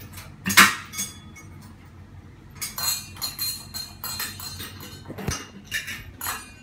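Metal parts clinking and tapping as a ceiling fan's motor assembly is handled and fitted by hand. There is one sharp clack about half a second in, then a run of lighter clinks with brief metallic ringing, and a few more taps near the end.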